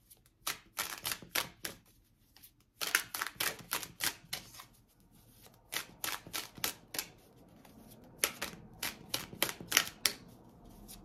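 Tarot deck being shuffled by hand: quick runs of card snaps and taps, in four bursts with short pauses between.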